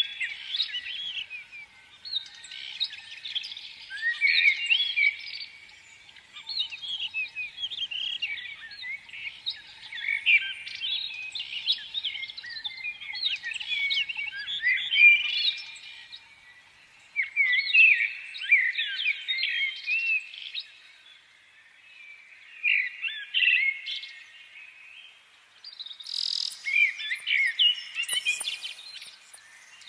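Many small songbirds chirping and twittering in overlapping bouts of short, quick calls, easing off briefly a few times. A few sharp clicks come near the end.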